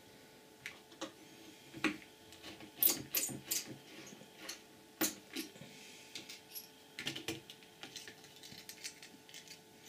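Small plastic and metal parts of an opened Panasonic Toughbook CF-P1 PDA clicking and tapping as they are handled with a small tool and a circuit board is worked loose: scattered, irregular sharp clicks and light knocks.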